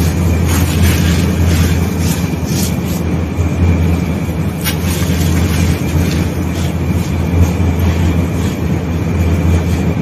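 Gritty crunching and pattering as handfuls of damp white sand-cement mix are squeezed and let fall through the fingers, with scattered sharp crackles, over a steady low rumble.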